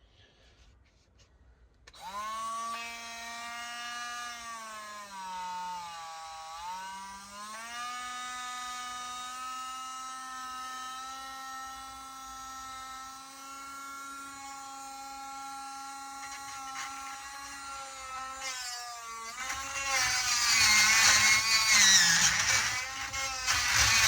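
12 V cordless rotary tool with a burr bit, switched on about two seconds in and running with a steady high whine that dips briefly in pitch. Near the end it becomes much louder and harsher with a wavering pitch as the burr bites into the metal of a lock.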